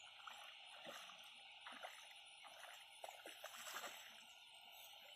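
Near silence: faint outdoor ambience with a steady high hiss and a few soft scattered ticks.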